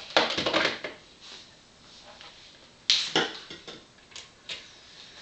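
Handling noise as plastic meters and containers are moved across a countertop, in two scraping bursts about three seconds apart. A couple of small clicks follow as the meters' switches are pressed.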